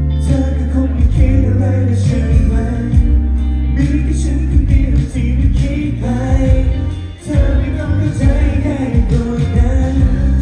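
Pop song with singing over a concert sound system, with heavy bass; the music dips briefly about seven seconds in.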